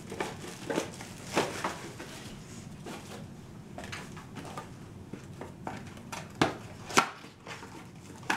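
A small cardboard box being handled and slit open with a folding knife, its cardboard scraping and rustling among plastic packaging film, with scattered sharp clicks and taps; the sharpest comes about seven seconds in.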